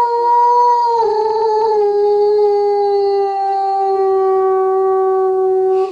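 German Shepherd dog howling: one long, steady howl that drops slightly in pitch about a second in and cuts off abruptly near the end.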